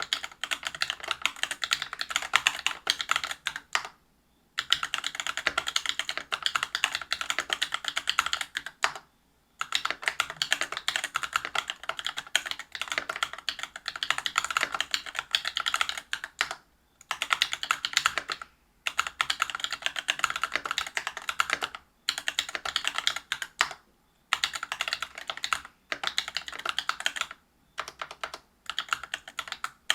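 Whale 75 mechanical keyboard with stock, unlubed Cobalt POM linear switches on a brass plate with PBT keycaps, typed on fast. The rapid keystrokes come in runs of several seconds, broken by about nine short pauses.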